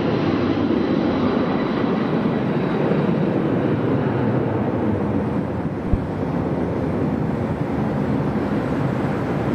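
Steady, loud jet noise from a Boeing 757-200's two Pratt & Whitney PW2037 turbofans at takeoff thrust, slowly losing its higher hiss. One brief knock about six seconds in.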